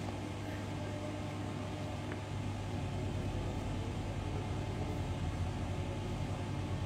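Steady low mechanical hum with a soft background hiss, getting a little louder about two and a half seconds in.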